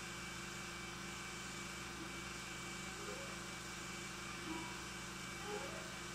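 Steady hum and hiss of an old 16mm film soundtrack, with faint rising notes of music coming in about three seconds in and again near the end.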